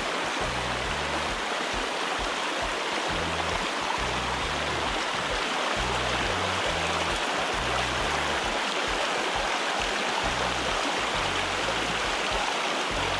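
Steady rush of water tumbling over stones in a shallow, fast riffle of a rocky stream, with background music's bass line of short low notes underneath.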